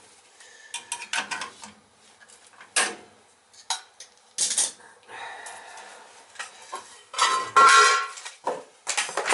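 Metal hand tools and small parts clinking and knocking while a gas boiler's control is being wired: a scatter of sharp clicks, with a longer, louder rattle about seven seconds in.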